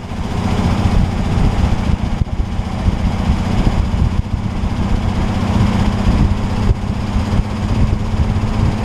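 Driving noise of a 1947 Armstrong Siddeley Hurricane on the road, picked up by a camera mounted low on the car's side: a steady, loud rumble of wind buffeting the microphone mixed with engine and tyre noise.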